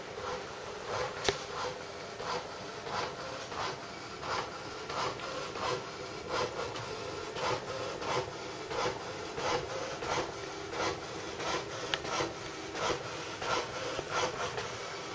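Repeated rasping, scraping strokes in an even rhythm, about one and a half a second, with a faint steady hum beneath.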